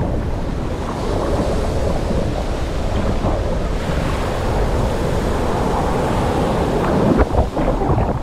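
Ocean surf washing and sloshing right at the microphone at water level, with wind noise on the microphone. About seven seconds in, a few sharp splashes as a wave breaks over it.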